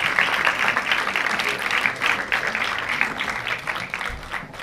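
Audience applauding, a dense steady patter of many hands clapping that dies away near the end.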